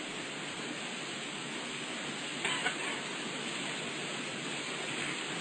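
Steady hiss of an old recitation recording, with a brief faint sound about two and a half seconds in.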